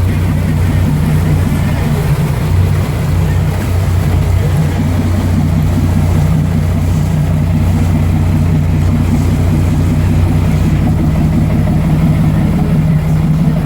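Boat engine running steadily, a loud, even low hum.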